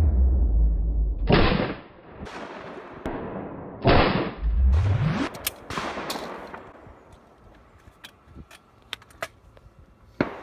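Two shotgun shots about two and a half seconds apart, each a loud crack with a long echo across the valley, followed by a run of small metallic clicks as the gun is broken open and handled, and a sharp crack near the end.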